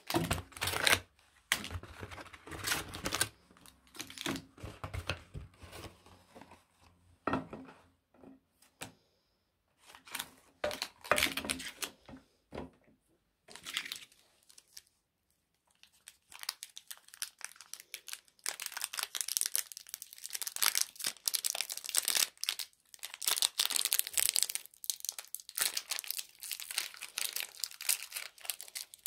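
Foil wrappers of Kinder Cards biscuit packets crinkling as they are handled. The crinkling comes in irregular bursts with short pauses, then runs denser and higher in the second half.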